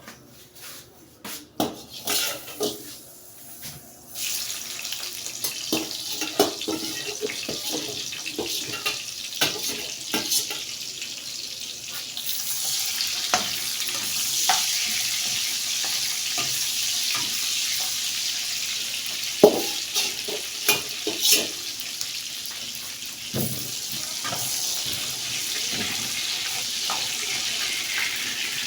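Clatter of pots and utensils, then from about four seconds in a steady hiss of food frying in hot oil, growing louder a few seconds later, with occasional knocks of a spoon against the pot.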